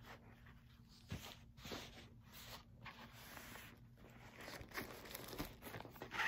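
Faint, irregular rustling and crinkling of tissue paper and a cloth dust bag as a wrapped handbag is handled, with a few light ticks.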